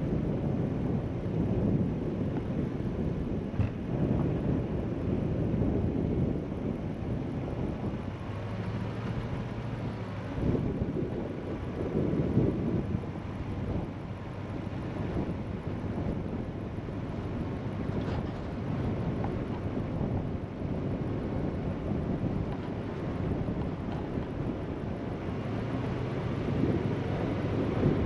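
Vehicle driving on a dirt and gravel road: a steady low rumble of tyres and engine, with a few faint clicks.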